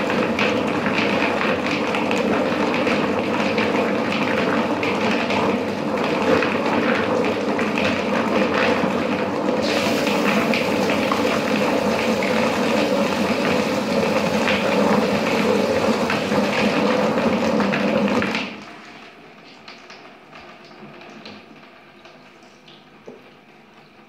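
Drum-type quail plucker running, its spinning rubber-fingered disc tumbling scalded quail against the rubber fingers to strip the feathers. About ten seconds in, a hose spray of water into the drum adds a hiss over the machine noise; both stop abruptly about three-quarters of the way through, and it falls much quieter.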